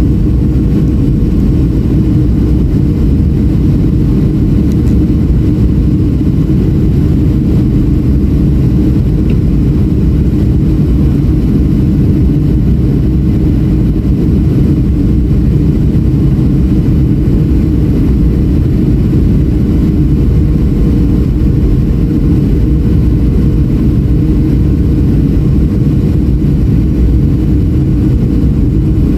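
Inside the cabin of a Boeing 737-700 on its descent to land: the CFM56-7B jet engines and the airflow make a steady, loud low rumble, with a faint constant hum over it.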